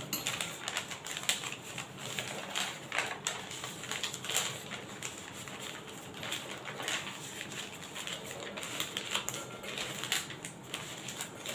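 A sheet of paper being folded and creased by hand on a tabletop: quiet, irregular crinkling and small taps.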